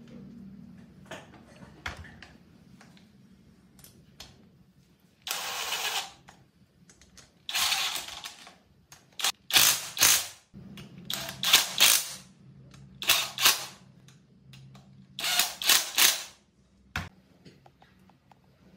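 Socket ratchet clicking in about six spells of rapid clicks, each half a second to a second long, as the cylinder head bolts of a small four-stroke generator engine are run down. A single knock near the end.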